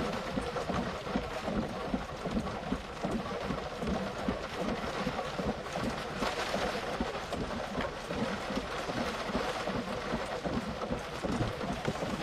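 Tornado winds driving heavy rain against a vehicle, heard from inside the cab as a steady, fluttering rush of wind and rain.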